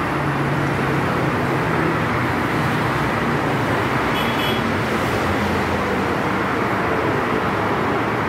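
Steady road traffic noise, a constant even rumble of passing vehicles with no single event standing out.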